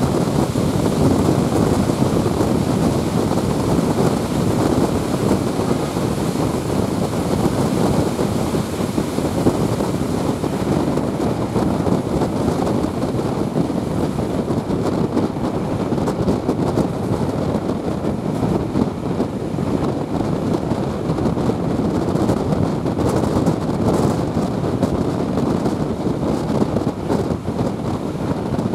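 Steady rushing noise of a moving passenger train, heard from an open carriage window, with the wind buffeting the microphone.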